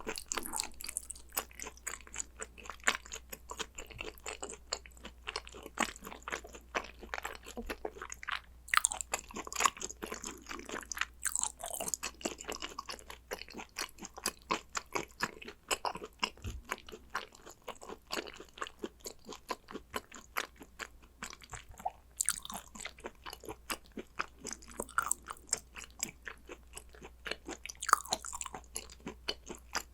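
Close-up chewing and crunching of food in the mouth, a dense run of small crisp clicks and wet mouth sounds, several a second, as spicy gochujang hanwoo beef tartare is eaten.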